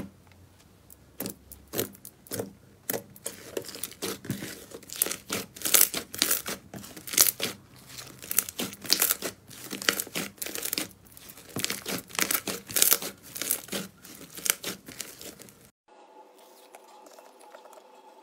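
Slime being squished and stretched, making a dense run of sharp crackles and pops. Near the end it cuts abruptly to a much fainter sound.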